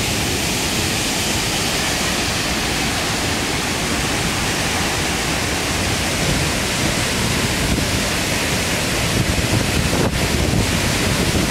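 Steady roar of a large waterfall, rushing water and spray with no break.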